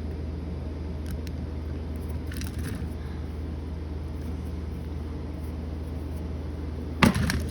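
Faint clicks and scrapes of a small screwdriver working a switch-plate screw into its hole, over a steady low hum. A sharp clatter comes near the end.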